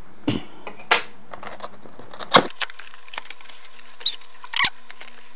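Cardboard speaker box being opened and handled: scattered taps, clicks and scrapes of the packaging and flaps.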